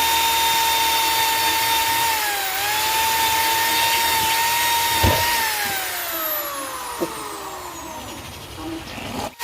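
Handheld electric drill whining at a steady speed. The pitch dips briefly as it is pressed into the work about two and a half seconds in, then falls steadily over the last few seconds as it slows, and the drill stops just before the end. Two sharp knocks come about five and seven seconds in.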